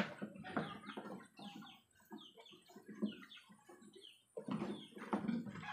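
Newborn piglets squeaking and grunting: a steady run of short, high squeaks that fall in pitch, with lower grunts and rustling that are loudest at the start and again near the end.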